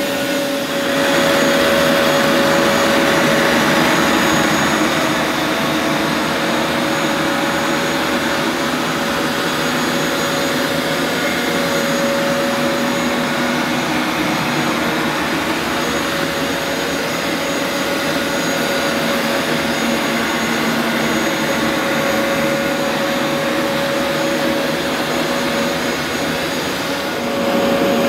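Vax Rapid Power Plus upright carpet washer running as it washes carpet, its suction motor giving a steady hum with a constant tone. It gets a little louder about a second in and again near the end.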